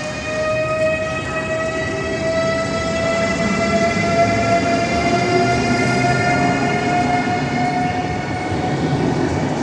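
Electric train moving off: a steady whine from its traction motors, rising slowly in pitch, over the low rumble of the wheels on the rails.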